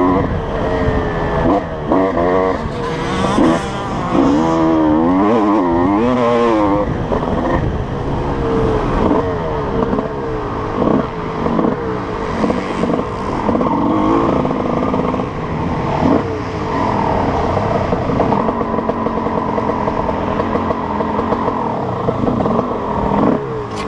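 Honda CR250 two-stroke motocross bike engine revving hard, its pitch swinging rapidly up and down as the rider works the throttle through the gears for the first several seconds. It then runs steadier and lower, with short dips off the throttle.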